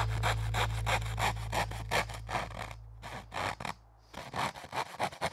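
Japanese-style pull saw cutting thin plywood by hand in quick, even strokes, about three or four a second, with a brief pause about three seconds in.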